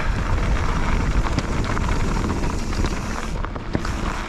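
A Bird Aeris 145 mountain bike rolling fast down a rough trail: tyres rumbling over rocks and gravel and the bike rattling, with scattered sharp knocks, while wind buffets the helmet camera's microphone.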